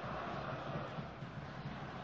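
Steady stadium crowd noise, an even background of many voices with no single sound standing out.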